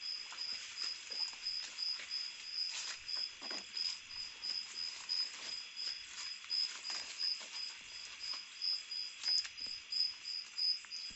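A night insect calling in a steady high-pitched pulsed trill, about three pulses a second, with scattered rustles and light footsteps through undergrowth.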